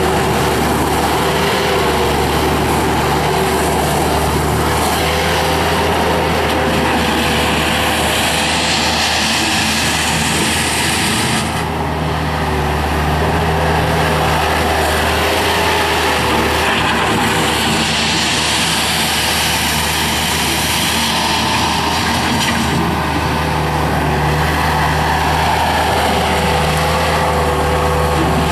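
Bobcat 863G skid steer loader's Deutz turbo diesel engine running steadily at a raised throttle while the machine is operated, with a higher hiss and whine that swells and fades several times.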